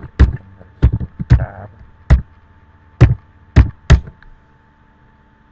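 Computer keyboard keys struck one by one: about eight loud, irregular keystrokes as a short command is typed, stopping a little after four seconds in.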